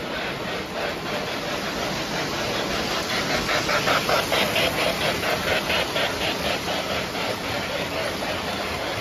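O gauge model trains running on three-rail track: a steady rumble of wheels and motors with a rhythmic pulsing, about four beats a second, that is loudest in the middle as a steam locomotive pulling passenger cars passes close by.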